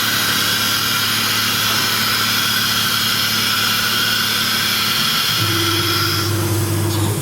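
Steady high-pitched whine of a TR408H CNC router's spindle running, over a low hum. About five seconds in a deeper hum grows louder, and the high whine drops away near the end.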